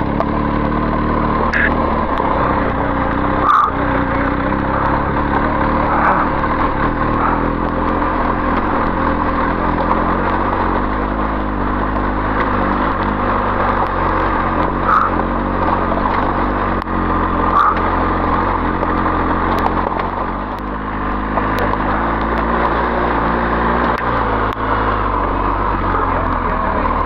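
BMW R 1250 GS Adventure's boxer-twin engine running steadily at low speed as the bike rolls along a loose gravel track, with a few sharp knocks along the way.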